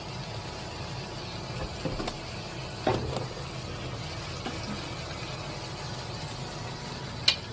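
Octopus and vegetables sizzling steadily in a frying pan on a gas burner, over a low steady hum, with a sharp click near the end.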